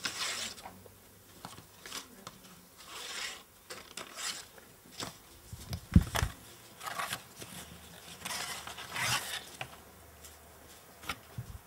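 Book pages and loose papers rustling in several short bursts as they are leafed through. About six seconds in comes a single dull thump, the loudest sound, as the handheld microphone is laid down on the desk.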